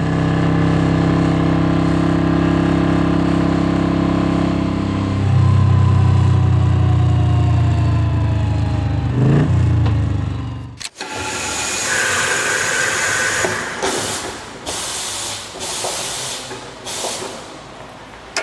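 Motorcycle engine running at a steady note that shifts lower about five seconds in and cuts off suddenly near the middle, followed by a run of separate hissing bursts.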